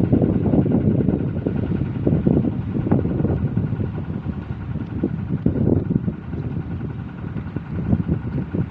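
Strong gusty wind buffeting the microphone, a loud uneven rumble that swells and eases, with a faint steady whine above it.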